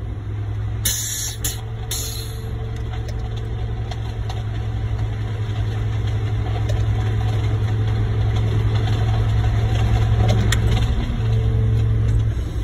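Concrete mixer truck's diesel engine running and gradually revving higher over several seconds, as the drum discharges the last of the load. Two short bursts of hiss sound about one and two seconds in.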